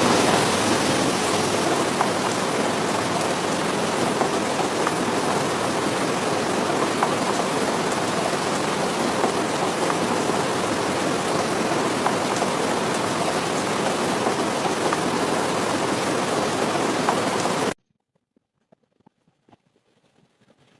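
Heavy rain falling steadily, a dense even hiss with faint ticks in it. It cuts off suddenly a few seconds before the end, leaving near silence.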